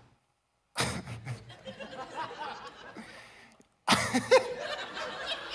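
Comedy club audience laughing and chuckling, broken by two brief dead-silent gaps. The laughter starts about a second in, and a louder burst follows a little before four seconds.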